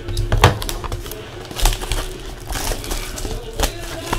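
Baseball trading cards and packs being handled and flipped through: an irregular series of sharp clicks, snaps and rustles.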